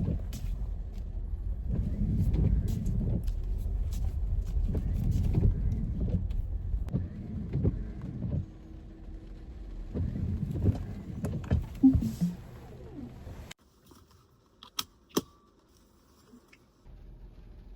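Car in motion, a steady low rumble with scattered clicks and knocks, that cuts off abruptly about two-thirds of the way in; a few sharp clicks follow in the quiet.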